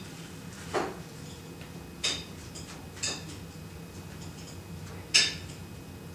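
Four short, sharp clicks and rustles, irregularly spaced and the last one the loudest, as a fabric dog bootie is handled and fitted onto a dog's paw.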